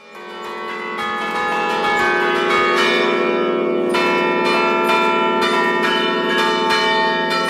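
A set of church tower bells played by hand from a wooden baton keyboard, struck one after another in quick succession so that the notes overlap and ring on together. The sound fades in over the first second.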